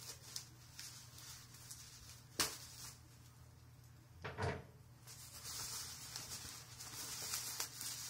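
Hands working open a small plastic USB humidifier: a sharp click a couple of seconds in, a knock about two seconds later, then faint rubbing and rustling as the parts are handled.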